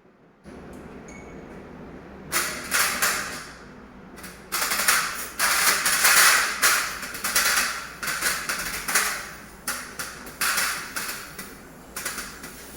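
Aerosol air-conditioner cleaner sprayed onto an indoor split-unit air conditioner in repeated hissing bursts, some short and some over a second long, starting about two seconds in.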